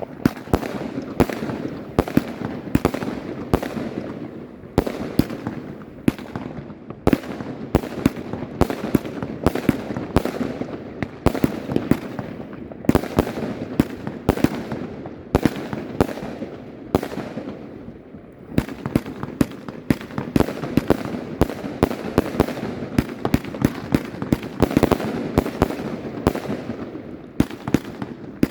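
Argento Pyroshow 2000-A Minevra firework battery firing a continuous barrage, several sharp shots and bursting reports a second, with a few short lulls between sequences.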